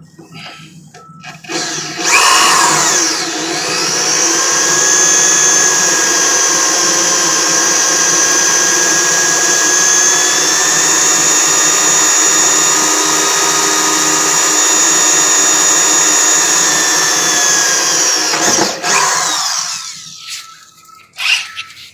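Variable-speed electric drill boring an anchor-bolt hole through a steel truck battery box. The motor whine rises as it spins up about two seconds in, holds steady for about sixteen seconds, then falls away as the trigger is released near the end.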